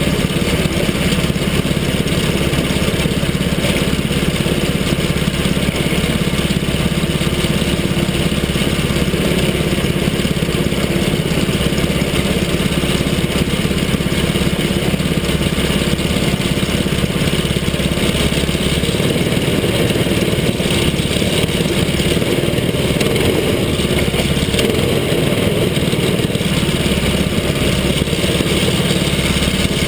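Mini sprint kart engine running steadily at low speed, heard close up from the cockpit. Its low note drops about two thirds of the way through.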